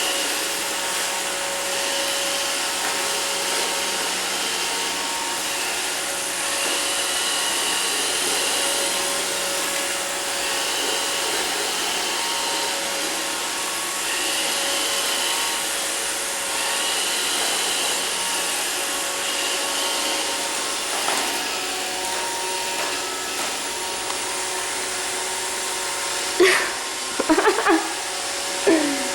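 iRobot Roomba robot vacuum running steadily, its motor and brushes giving a continuous whir with a few steady tones. Near the end there are a few short, loud sliding-pitch sounds over it.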